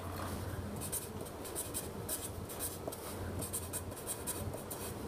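Marker pen writing on paper: a run of short scratchy strokes as letters are drawn.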